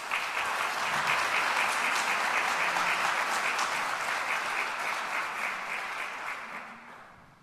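Audience applauding, a dense steady clapping that starts at once and fades away near the end.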